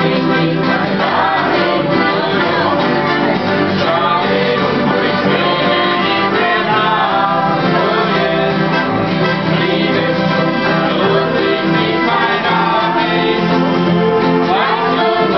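Two acoustic guitars strummed together while a man and a woman sing a duet, played live.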